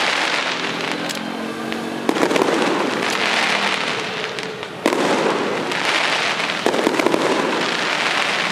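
Aerial fireworks shells bursting: a sharp bang about two seconds in, another near five seconds and another near seven. Each bang is followed by a long crackling fizz.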